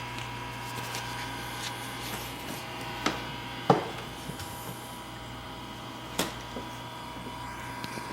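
Vortech MP60 magnetic-drive aquarium propeller pump running in constant mode with a steady hum and a thin high tone. A few sharp clicks or knocks cut through it, the loudest a little before four seconds in, with others just after three seconds and past six seconds.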